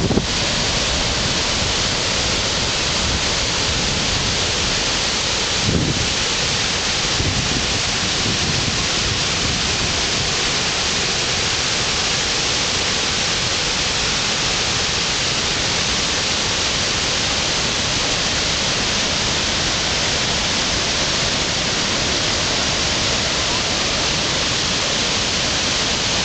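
The Lower Falls of the Yellowstone River plunging over its brink: a loud, steady, unbroken rush of falling water. There is a brief low thump about six seconds in.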